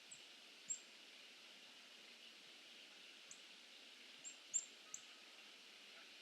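Small birds giving brief, very high chirps, about six in all: single ones near the start and a quick cluster about four to five seconds in. They sound faintly over a steady hiss.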